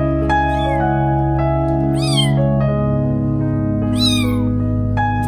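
A one-day-old kitten mewing: three short, high cries that rise and fall in pitch, about two seconds apart. Background music with long sustained notes plays underneath.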